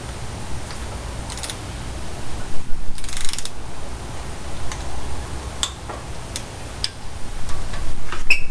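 Ratchet wrench clicking in short runs with scattered metal clinks, while bolts are run in and snugged down during a cam install on an LS V8. A dense rasping burst comes about three seconds in, over a steady low hum.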